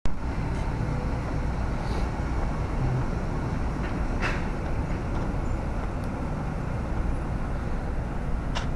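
Steady low rumble and hiss from a DBPOWER N5 action camera's built-in microphone as it is carried along a street at night, with a couple of faint ticks, one about four seconds in and one near the end.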